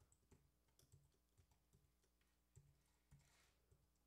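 Faint computer keyboard typing: scattered single keystrokes, roughly two a second.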